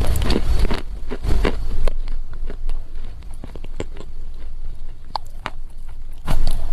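Close-miked crunching of a lump of dry loess clay being bitten and chewed: dense crunches for the first two seconds, then quieter scattered crackles, and a loud crunch again near the end.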